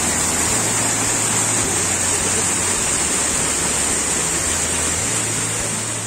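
Waterfall pouring into a rock pool: a steady, loud rush of falling water.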